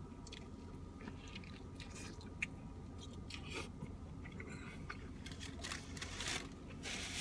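A person biting into and chewing a pulled-pork barbecue sandwich with pickles: soft wet chewing with small crunches and clicks, busier near the end, over a low steady hum.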